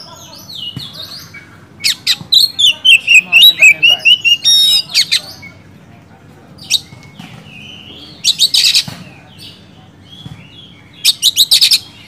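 Oriental magpie-robin singing in full voice. A loud run of quick, varied notes and whistles comes about two seconds in, followed by two short bursts of rapid, harsh notes, one near the middle and one near the end.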